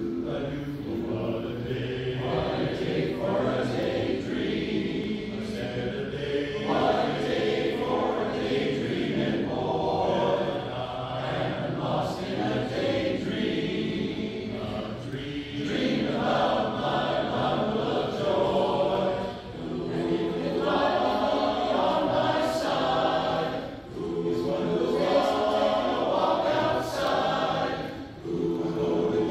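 Barbershop chorus singing unaccompanied in close harmony, with brief breaks between phrases.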